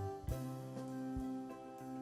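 Background music: held instrumental chords that change every half second or so, with a new note struck about a quarter second in.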